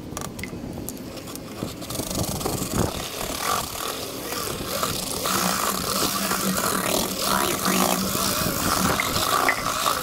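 Corded electric drill spinning a homemade tulip-auger mixer through wet, coloured mortar in a plastic bucket. The mixing noise builds about two seconds in, and a steady motor whine joins it about halfway.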